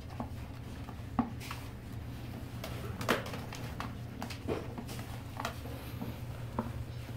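Dachshund puppies scrabbling inside a flexible plastic tub: scattered scratches and light knocks of claws and paws against the plastic, the sharpest about three seconds in, over a steady low hum.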